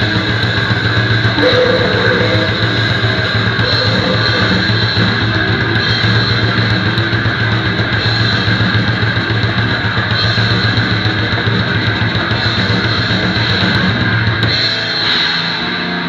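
Grindcore band playing live: distorted electric guitar and a drum kit in a loud, dense, unbroken wall of sound. About a second and a half before the end the low end drops out and the sound thins.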